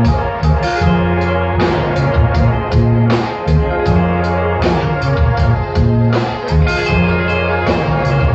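Live band playing loud music: guitar over a sustained bass line, with drum hits throughout.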